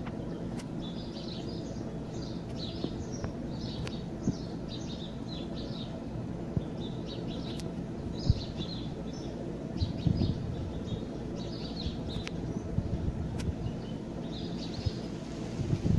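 Small birds chirping in short, repeated bursts over a steady low droning hum, with a few brief thumps about halfway through. The low hum is the kind of drone presented as a strange 'trumpet' sound in the sky.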